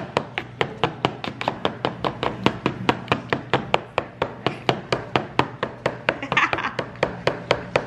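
Black plastic masher mashing bananas with egg and maple syrup in a bowl: quick, even taps, about five a second, as each stroke hits the bowl's bottom.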